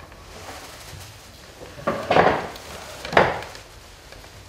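Wooden chairs being pulled out and shifted as people sit down at a table: two scraping knocks about a second apart, the first longer, the second sharper.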